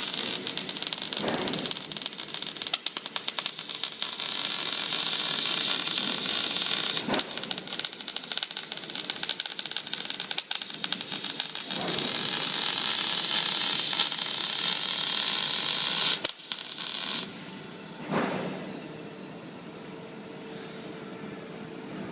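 Robotic welding arc crackling and hissing steadily as it lays a weld, then cutting off suddenly about seventeen seconds in. A quieter background with a short swelling sound follows.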